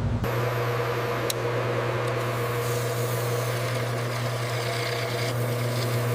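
Steady machine hum: a constant low drone with a few steady higher tones and a faint high whine, and a single sharp click about a second in.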